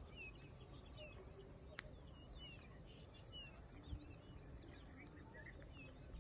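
Faint chirps of small birds, many short calls repeating through the background. A sharp click comes about two seconds in and a soft thump about four seconds in.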